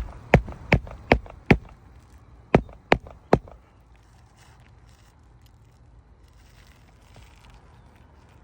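Hammer driving roofing nails into a replacement roof shingle: five sharp strikes about two and a half a second, a short pause, then three more.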